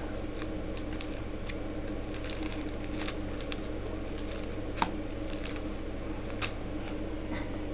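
Trading cards being handled, with faint scattered clicks and rustles of cards and plastic, a sharper click about five seconds in, over a steady background hum.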